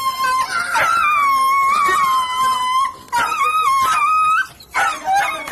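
A dog whining in long, high, wavering cries, each a second or two long, with short breaks between them.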